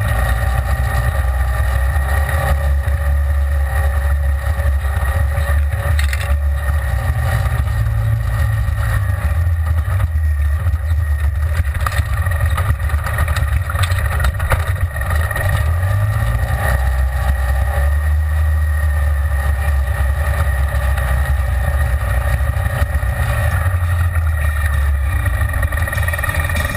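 Side-by-side UTV engine running under way on a dirt trail, heard from inside the open cab. It is a steady low drone that rises and falls a little as the throttle changes.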